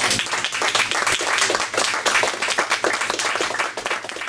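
Audience applauding: many hands clapping irregularly, dying away near the end.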